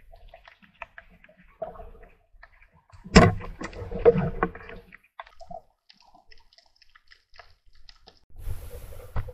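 Underwater speargun shot at an octopus: a sharp crack about three seconds in, followed by a second or so of rattling and scraping as the speared octopus struggles on the shaft. Scattered small clicks around it, and a short rushing burst near the end.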